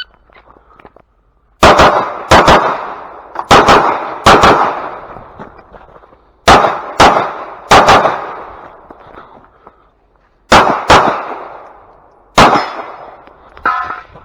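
Glock 45 9mm pistol firing about a dozen shots, mostly in quick pairs, in strings of several shots separated by pauses of one to three seconds. Each sharp crack trails off in echo.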